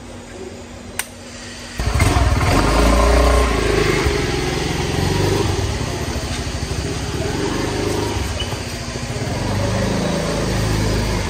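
A motor scooter's engine starts about two seconds in and keeps running steadily, after a single click a second earlier.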